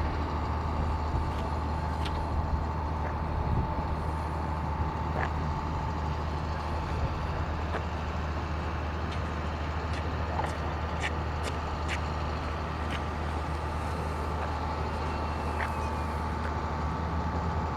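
A steady engine drone that holds one pitch throughout, under a constant low rumble, with a few faint clicks.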